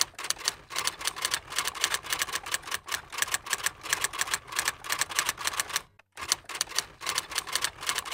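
Typing sound effect: a rapid, even run of keystroke clicks, about eight a second, with a short break near six seconds.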